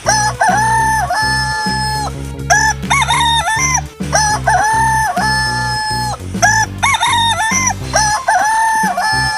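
Rooster crowing three times, about four seconds apart, with shorter calls in between, over background music with a steady beat.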